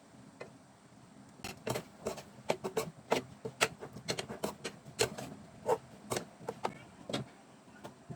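Metal cooking spoon clinking and knocking against cookware in a quick, irregular series, as when chickpeas are stirred or served.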